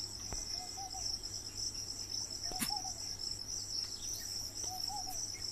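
Crickets trilling steadily with a high pitch, over a low steady hum, with a couple of faint clicks.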